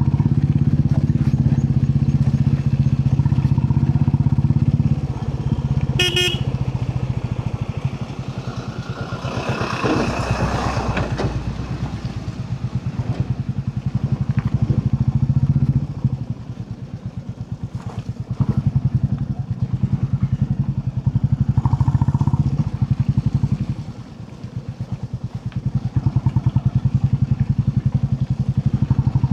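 Royal Enfield Classic 350's single-cylinder engine running under way, its steady exhaust beat easing off and picking up again several times as the throttle is rolled off and reopened. A short horn toot sounds about six seconds in.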